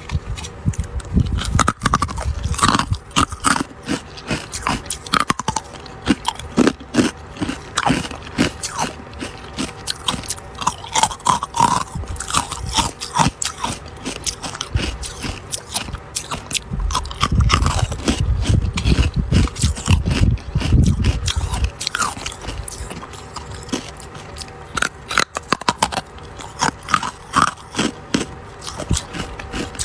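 Carbonated white ice being bitten and chewed close to the microphone: a steady run of crisp, irregular crunches, with a low rumble for a few seconds past the middle.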